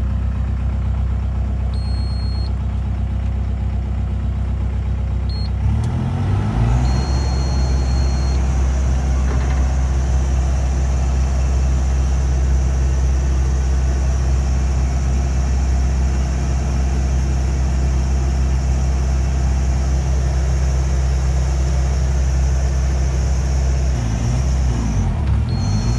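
JCB JS220 excavator's diesel engine running. About six seconds in its speed changes and it settles to a steady, louder run with a high whine over it, and near the end the engine note sags again. This is the engine being tested for a low-power fault, with water contaminating the fuel filter.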